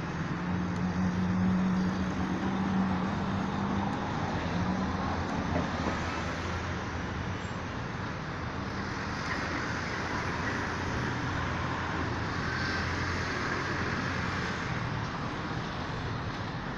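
Road traffic noise: cars passing with a steady hiss and low hum, loudest in the first few seconds.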